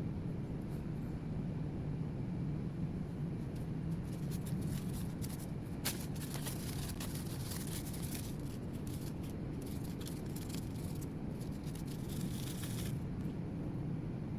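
Light clicks and scraping from hand work on a laptop's internals, in a busy run that starts about four seconds in, with a sharper click about six seconds in, and stops abruptly near the end, over a steady low hum.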